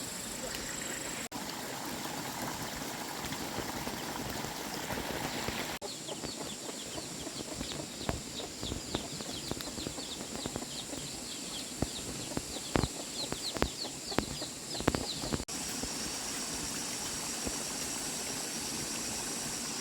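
Chickens and chicks calling: many short, high, falling peeps, mostly in the middle of the stretch, with scattered sharp knocks over a steady outdoor hiss. The background changes abruptly a few times.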